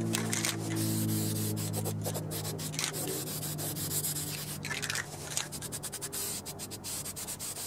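Footsteps and rustling on grass with scattered short scuffs and clicks, over a low hum that fades out over the first few seconds.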